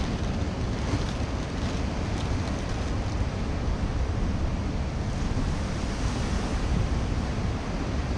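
Ocean surf washing against rocks, with wind buffeting the microphone: a steady rushing noise, heaviest in the low rumble.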